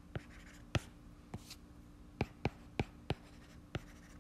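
Stylus tapping and scratching on an iPad's glass screen while handwriting: about eight sharp, irregular taps as strokes begin, with faint scraping between them.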